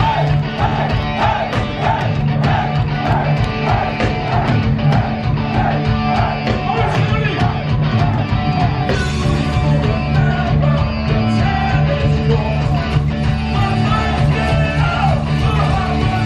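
Punk rock band playing live, with a lead singer, electric guitars, bass guitar and drums, heard from within the crowd. The sound gets brighter and fuller about nine seconds in.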